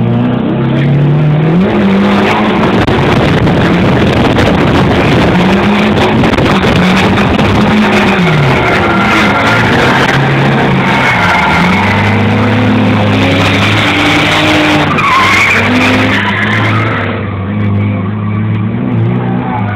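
A drift car's engine, heard from inside the cabin, revving up and dropping back over and over as it slides through the corners, with tyres skidding and squealing. Near the end the engine settles to a steadier, quieter note.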